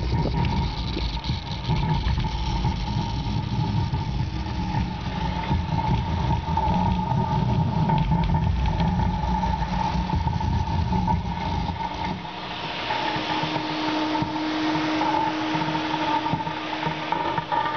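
Subwoofer driven by a homemade class-D amplifier, playing the deep bass of a music track as a heavy rumble with a steady higher tone over it. The deep bass drops out about twelve seconds in.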